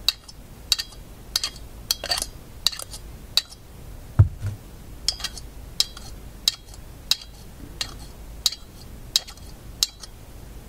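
Small shadow-meter magnet being stroked against a larger magnet to re-magnetize it, making a sharp metallic click at each contact, about one every 0.7 seconds; a duller knock about four seconds in.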